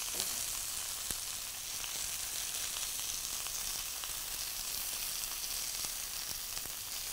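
Flat iron steaks sizzling steadily in hot oil in a frying pan, with a few faint pops of spitting fat.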